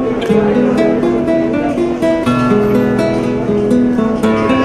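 Background music: an acoustic guitar playing a plucked melody over lower held notes.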